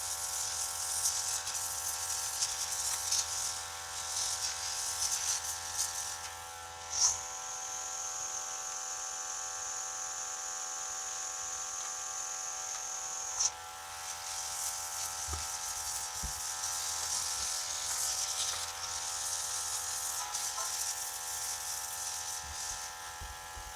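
Airbrush spraying paint: a high hiss of air that comes and goes with the trigger, held steady for about six seconds in the middle. Under it runs the steady hum of the small air compressor that feeds it.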